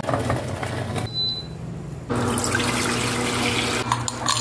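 Water running into a kitchen sink as a steady rush. It drops away for about a second a little after the start, then returns, with a few clicks near the end.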